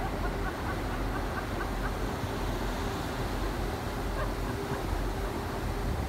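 Steady rush of wind and open sea with a low rumble and a steady hum underneath, and a few faint short calls in the first couple of seconds.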